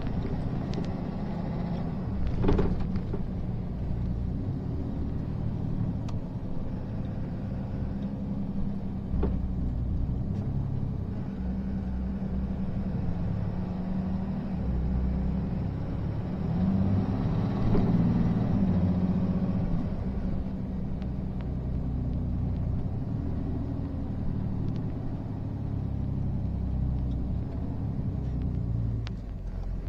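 Five-ton truck's engine running, heard from inside the cab: a steady low drone with road rumble. The engine note swells and rises about halfway through as the truck pulls, then settles back. A couple of sharp knocks come in the first few seconds.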